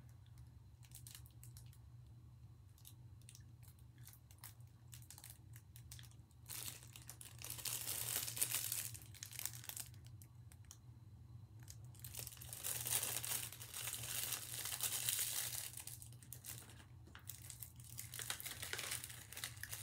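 Clear plastic snack wrapper crinkling as it is handled, in three spells of rustling with quieter stretches between, over a faint steady low hum.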